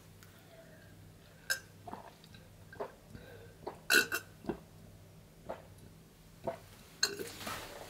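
A person drinking from a glass: a string of short swallowing and gulping sounds with small lip noises, and a breathy exhale near the end.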